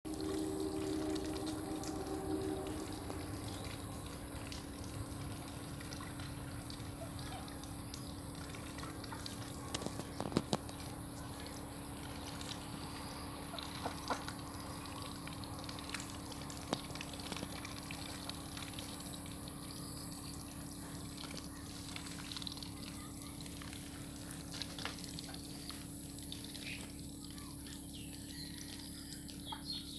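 Domestic ducks dabbling with their bills in a shallow dish of wet feed: soft wet slurping and splashing, with a few sharp clicks, the loudest about ten seconds in.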